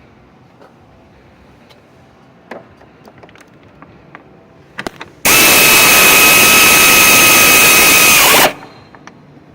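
A power tool runs for about three seconds at a steady, high whirring pitch, starting about five seconds in and spinning down as it is released. Before it come light clinks of hand tools on metal.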